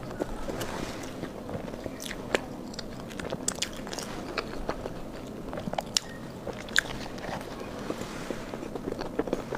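Close-miked eating: a person biting and chewing soft food, with irregular wet mouth clicks and smacks over a steady chewing sound, a few clicks louder than the rest.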